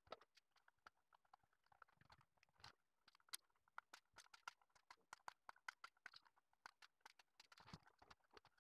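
Faint, irregular clicks and taps, several a second, as a hand-built amplifier circuit board and its finned aluminium heatsink are handled on a workbench.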